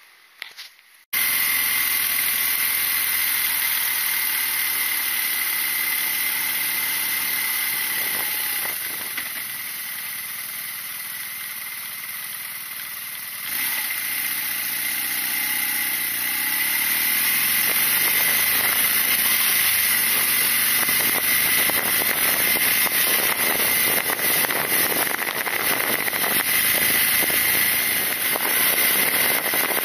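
BMW R nineT's boxer twin engine running as the motorcycle is ridden, with wind and road noise on the fork-mounted microphone. The sound starts abruptly about a second in, eases off for a stretch with the engine pitch gliding, then grows louder again as the bike accelerates.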